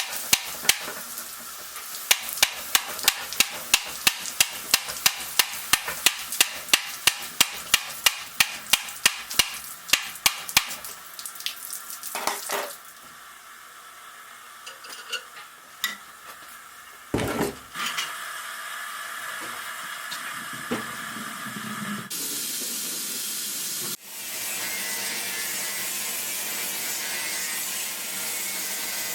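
Setting an iron tire on a wooden wagon wheel: a steady run of hammer blows, about two or three a second, driving the tire down, then scattered knocks. Near the end comes a steady hiss of water and steam as the hot tire is quenched.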